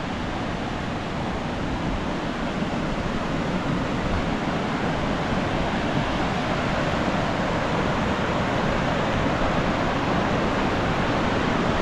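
A river's steady rush of flowing water, slowly growing a little louder.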